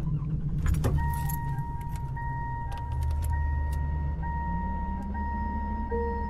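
Car sounds: keys jangling and a few clicks, then a car's warning chime ringing steadily over a low engine rumble. A soft held musical note joins near the end.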